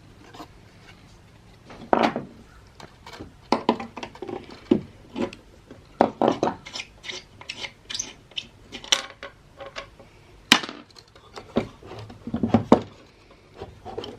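Irregular clacks, knocks and scrapes of hard plastic and metal parts being handled and pried at while a defibrillator is taken apart, with a sharp loud click about ten and a half seconds in.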